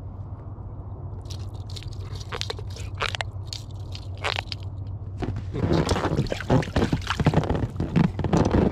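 Pufferfish held in a fish grip, making irregular scraping, crunching clicks and squeaks as it pumps itself up, likened to someone working a foot pump. The sounds turn louder and denser about halfway through.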